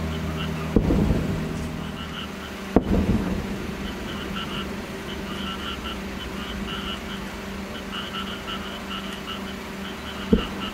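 Distant aerial firework shells bursting: three booms, about a second in, near three seconds and near the end, the first two followed by a rolling echo. Frogs call steadily in rapid chirping pulses between the booms.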